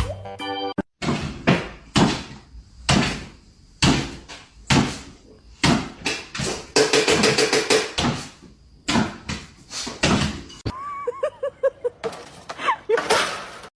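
A series of sharp knocks and thumps, roughly one a second, followed near the end by a few wavering high-pitched calls.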